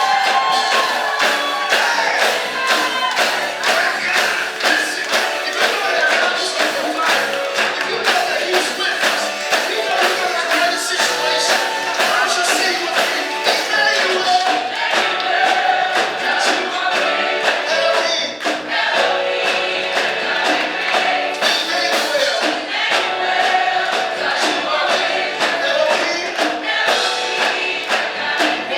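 Gospel music: a choir singing over a band with a steady, driving beat.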